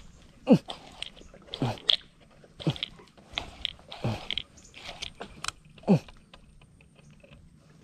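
Baitcasting reel being cranked during a lure retrieve, with quick clicks and a short low plop about once a second as the lure is worked across the water.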